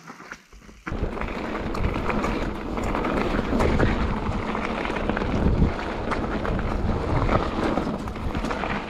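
Wind rushing over an action camera's microphone and mountain bike tyres rolling fast over a gravel trail, with many small clicks and knocks from the bike over bumps. The noise starts suddenly about a second in, after a quieter moment.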